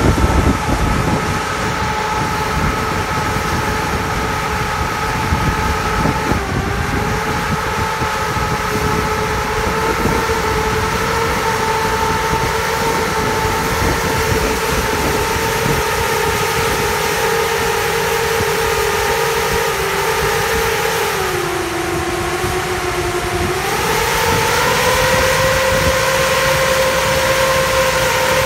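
Tractor-mounted C&N bug vacuum and its tractor running: a steady whine over a low engine rumble. About three-quarters of the way through, the whine sags in pitch, then climbs back higher and the sound grows louder.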